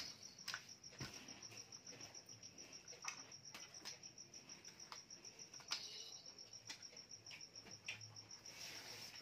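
Faint, steady insect chirping: an evenly pulsing high trill that runs on without a break. Scattered soft clicks and knocks of plastic toys being handled come through it.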